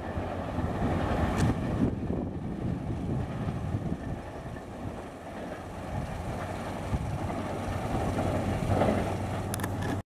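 Rumble of a diesel-hauled passenger train's coaches rolling away into the distance, mixed with wind on the microphone. A couple of sharp clicks come near the end.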